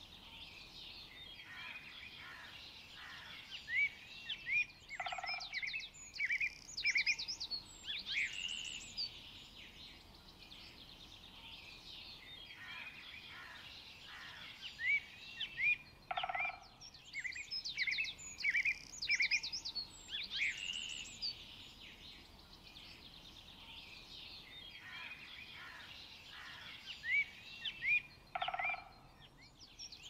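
Forest ambience of songbirds chirping and singing in bouts of quick, high, sweeping notes over a faint steady background hiss. A short, lower call sounds once in each bout, and the bouts come back about every twelve seconds.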